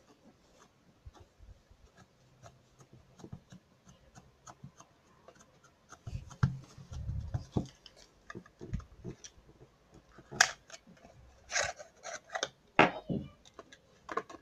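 Slime made from stress-ball filling mixed with shaving foam being squeezed and worked by hand: a steady run of small sticky clicks and squishes, with a few soft low thuds about six to nine seconds in and louder crackly clusters of clicks between about ten and thirteen seconds.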